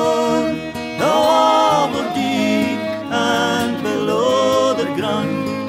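Background music: a Scots folk ballad with plucked-string, guitar-like accompaniment, in a passage with no sung words.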